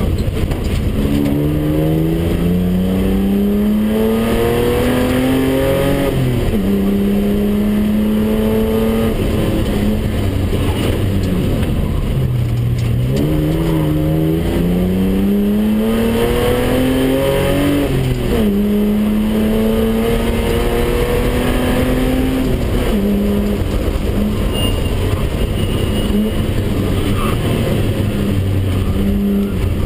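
BMW 320/6's straight-six engine pulling hard, heard from inside the cabin. The engine note climbs through each gear and drops at each upshift, falls away about twelve seconds in as the car slows, then climbs again through the gears.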